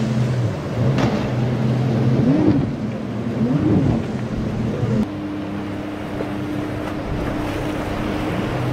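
Twin outboard engines on a boat running hard through choppy inlet water, over a wash of spray, waves and wind. The engine pitch swoops up and down twice in the first half. About halfway through the sound changes abruptly to another boat's outboards holding a steady drone.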